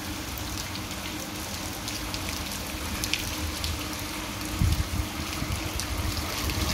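Steady rain falling on a wet cobbled street, an even hiss with scattered drops. From about two-thirds of the way in, a low rumble of wind buffets the microphone.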